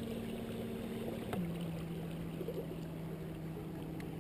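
A boat motor hums steadily. Just over a second in there is a click, and the hum drops to a lower pitch and holds there.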